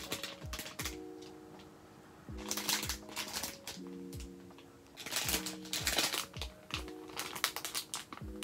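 Clear plastic packaging crinkling and crackling in short bursts as a bagged squishy toy is handled, over soft background music with held chords.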